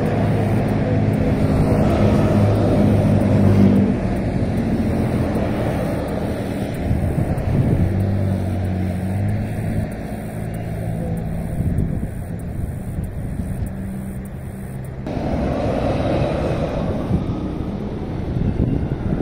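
Interstate traffic passing: cars and tractor-trailers going by, with engine drone and tyre noise.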